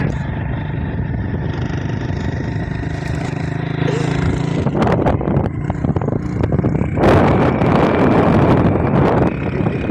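A motor vehicle's engine running steadily; about seven seconds in, a louder rushing noise joins it.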